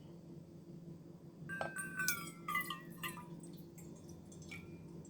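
Clicks and short squeaky scraping sounds of a water bottle and thermos being handled, mostly between about one and a half and three seconds in, over a steady low hum.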